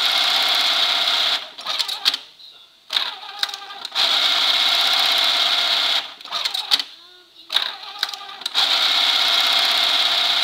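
Dürkopp 578 eyelet buttonhole machine sewing round eyelets: three sewing cycles of about two seconds each, a steady high whir, with clicks and clatter in the short gaps between them.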